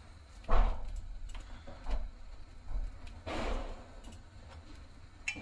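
Metal tongs handling a maize-flour roti over a gas burner flame: a few short scraping, rustling bursts, the loudest about half a second in, with light clicks of the tongs between them.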